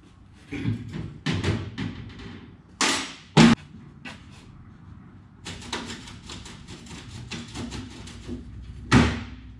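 Aluminium ute tray side being handled and fitted into place by hand: a series of metal knocks and clatters, the loudest clunk about three and a half seconds in and another near the end, with a run of quick light clicks between them.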